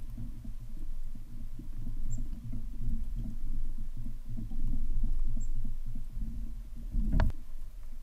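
Red-bellied woodpecker pecking at a wooden log feeder, a run of quick, dull low taps, with one sharper knock about seven seconds in.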